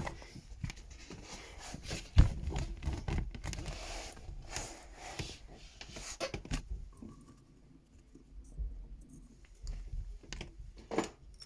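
Handling noise: rustling, scraping and scattered knocks as objects are picked up and moved about, with one sharp knock about two seconds in. It goes quieter for a few seconds in the second half.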